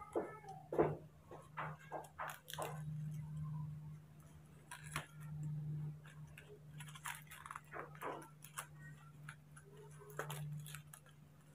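A baby monkey handling a silver foil or plastic packet, making irregular crinkling and crackling with scattered sharp clicks, over a steady low hum.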